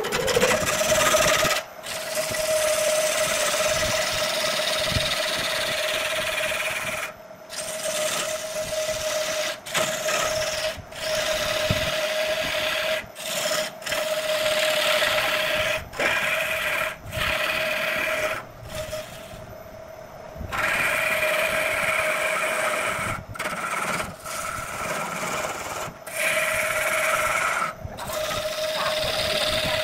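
Wood lathe running with a steady hum while a hand-held turning tool cuts into the spinning log, giving a rough scraping hiss as shavings peel off. The cutting sound is broken by many brief gaps.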